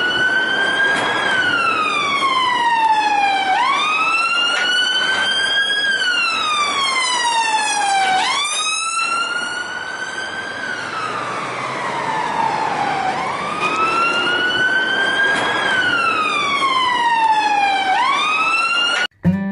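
Electronic wailing siren of a battery-operated toy army vehicle, the pitch climbing slowly and then sliding down, four times, snapping back up sharply at each restart. It cuts off suddenly near the end.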